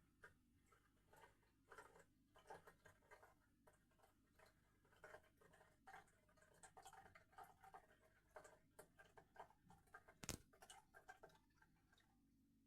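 Near silence with faint, irregular drips and ticks from a toilet settling after its refill, and one sharper click about ten seconds in.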